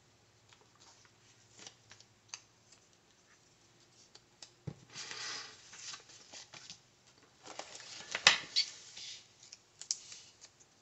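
Paper rustling as sticker sheets and a spiral-bound planner are handled and moved on a table, with scattered light taps and two sharper knocks, about halfway through and about three-quarters through, the second the loudest.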